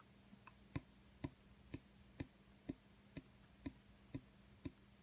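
Even ticking or tapping, about two sharp clicks a second, starting just under a second in, over a faint steady hum.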